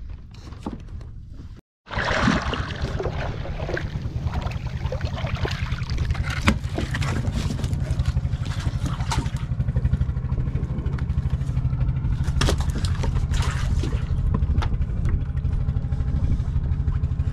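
A boat's engine running steadily, a low, even pulsing rumble, with scattered knocks and clicks on top. It comes in abruptly about two seconds in; before that there is only a quieter background.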